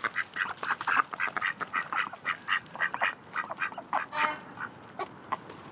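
A flock of waterfowl calling: many short, overlapping calls, several a second, continuing throughout.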